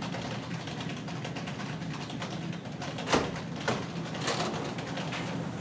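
A door latch clicks open about three seconds in, followed by a few softer knocks as the door swings open, over steady room hum.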